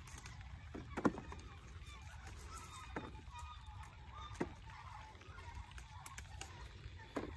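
Pepper stems snapping as peppers are picked by hand off the plants: a few sharp snaps, the loudest about a second in, over a low steady rumble.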